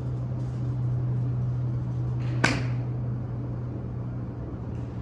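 Golf iron striking a range ball off a driving-range mat: one sharp crack about two and a half seconds in, over a steady low hum.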